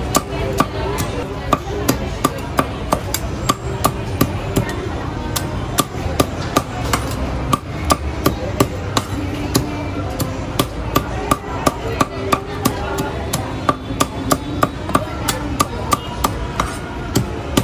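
Steel cleaver chopping crispy deep-fried pork on a thick round wooden chopping block: a steady run of sharp chops, about two to three a second, over a constant background hum.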